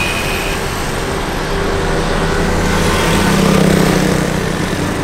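Road traffic: vehicle engines and tyre noise, with one vehicle passing close and swelling loudest about three and a half seconds in.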